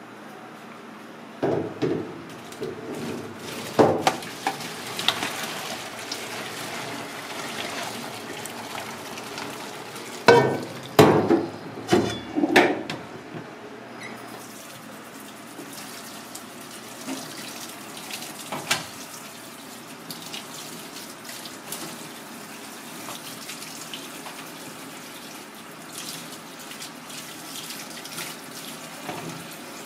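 A metal pot clanking against a stainless steel sink, with several loud knocks in the first half, as boiled tiger prawns and their cooking water are drained into a plastic colander. After that a kitchen tap runs steadily over the prawns as they are rinsed by hand.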